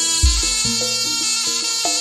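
Javanese jaranan ensemble music played live: percussion under a melody that moves in clear steps from note to note. A deep, heavy stroke lands about a quarter-second in, and lighter low strokes recur in a steady rhythm.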